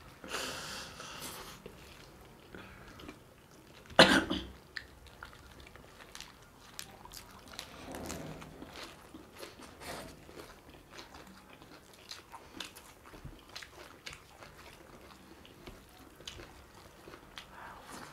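People eating: chewing and biting with small crunches and scattered mouth clicks. There is a brief hiss at the start and one sharp knock about four seconds in.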